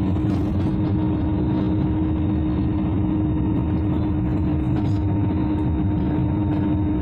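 A motor vehicle's engine and road noise heard from inside while driving: a steady drone with a constant hum.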